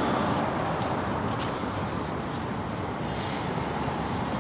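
Steady outdoor street noise with a traffic rumble, broken by a few faint light clicks.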